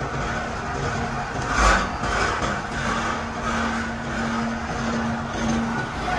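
Heavy rubber-processing machinery running with a steady rumble and a low hum, swelling louder about a second and a half in.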